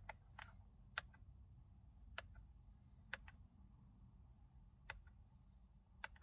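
Steering-wheel menu buttons of a 2021 Hyundai Kona clicking as they are pressed, about eight sharp separate clicks at irregular intervals, over a faint low hum.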